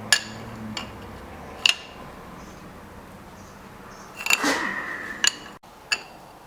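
A few sharp metallic clinks of a wrench and steel clamp fittings as an aluminium cylinder head is clamped to a milling machine table. About four seconds in there is a short scrape with a brief squeak.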